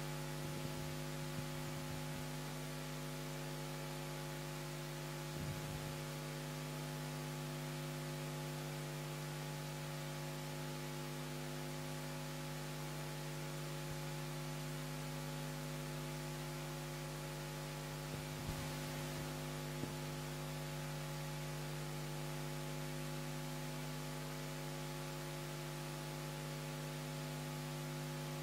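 Steady electrical mains hum in the recording, one low tone with several evenly spaced overtones over a faint hiss. A few faint clicks come through, near a quarter of the way in and again about two-thirds of the way in.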